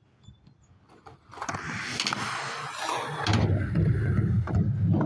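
Skateboard wheels rolling on steel skatepark ramps. A rolling noise builds after about a second and turns into a loud low rumble for the last couple of seconds, with a few sharp clacks of the board, then stops abruptly.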